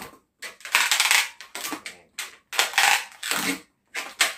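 Long latex modelling balloons squeaking and rubbing against each other as they are twisted together, in about five short scratchy bursts.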